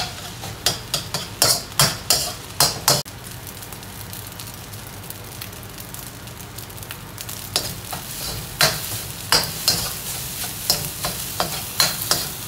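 A metal spatula scraping and knocking against a wok as fried rice is stir-fried, over a steady sizzle. The strokes stop for a few seconds around the middle, leaving only the sizzle, then start again.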